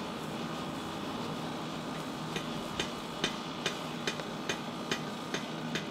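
A steady background hum; about two seconds in, a regular run of sharp hammer strikes on metal begins, a little over two a second.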